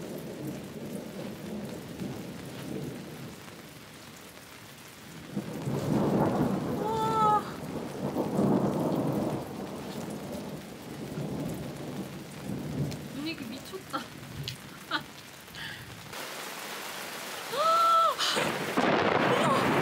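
Steady rain falling, with thunder rumbling; the rumble swells loudest about a quarter of the way in and again near the end. A woman gasps near the end.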